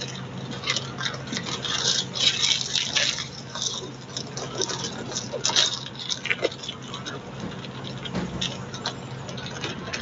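Irregular light clicks and taps, several a second, over a low steady hum.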